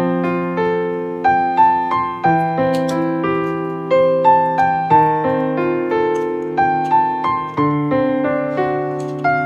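Background piano music: a slow melody of struck notes, about two a second, over held bass notes.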